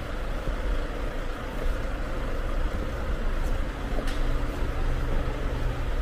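Street traffic: a vehicle engine running nearby, heard as a steady low rumble.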